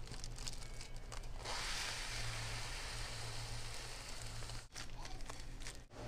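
Bird seed pouring from a gravity-bin dispenser into a plastic bag. The bag crinkles at first, then the falling seed makes a steady hiss from about a second and a half in, which stops sharply near the end.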